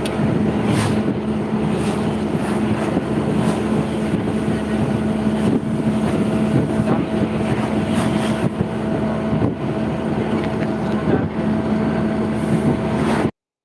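A motor running steadily with a constant low hum, with wind noise over it; it cuts off suddenly near the end.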